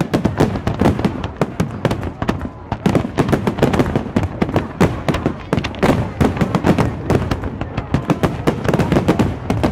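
Fireworks display: aerial shells bursting in quick succession, a dense, unbroken run of bangs and crackles.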